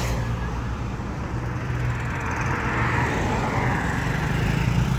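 Road traffic: vehicle engines running and tyres on the road, a steady low hum. A broad hiss swells gently about halfway through as a vehicle passes.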